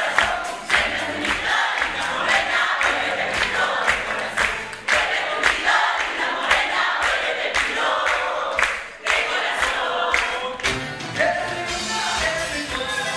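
Carnaval ayacuchano music: a group of voices singing together over a steady beat of sharp strikes. Near the end the music turns fuller, with held notes.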